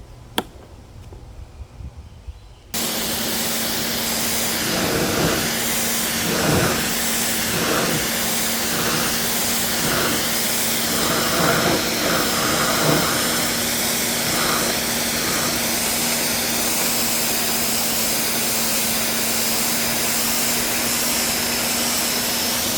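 Ryobi 1600 PSI electric pressure washer switched on about three seconds in: the motor's steady hum under the loud hiss of the high-pressure water jet. For several seconds midway the spray noise swells and fades about once a second, then it runs on evenly.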